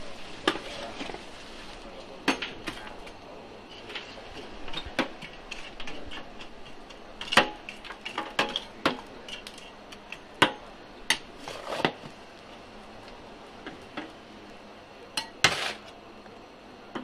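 A long-handled metal scoop stirring and shovelling charcoal in metal bucket stoves: irregular scrapes and clinks of metal against the coals and the stove's steel rim, with a few sharper knocks.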